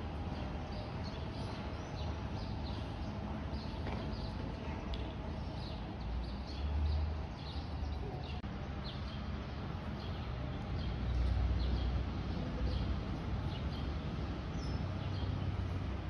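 Small birds chirping in short, scattered calls over a low rumble that swells twice, around seven seconds in and again near eleven seconds.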